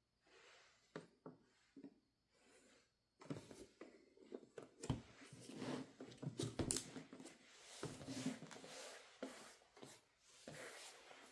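Faint handling of a diecast model's packaging: a few scattered clicks, then irregular rustling and sharp little clicks from about three seconds in.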